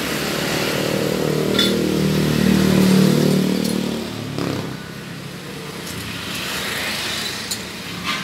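A motor vehicle engine, likely a motorcycle, passing by: its hum swells to a peak about three seconds in, then fades away. There are a few light clicks and clinks along the way.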